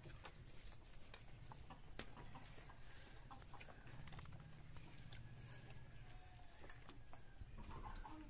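Quiet room with scattered small clicks and ticks of fingers working food on steel plates, over a low steady hum; a few faint short animal calls sound in the background about six to eight seconds in.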